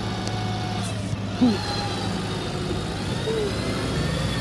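Refuse collection lorry's engine running steadily at idle, with one short sliding sound standing out about a second and a half in.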